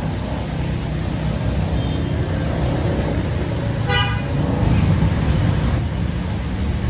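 Steady low rumble of road traffic in heavy rain, with one short car-horn toot about four seconds in.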